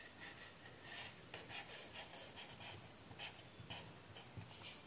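Faint scratching of a pen on paper in short, irregular strokes as zigzag resistor symbols are drawn.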